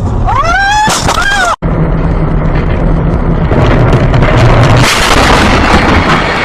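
Two short swooping tones that cut off abruptly, then a car crash heard from inside the car on a dashcam: a steady engine and road rumble, swelling into a loud rush of crashing noise about five seconds in.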